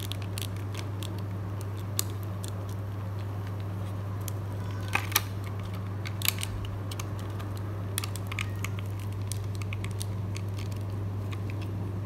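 Small clicks and taps of plastic being handled as a rubbery mask is pried off a toy doll's head, a few sharp clicks standing out, two of them close together about five seconds in. A steady low hum runs underneath.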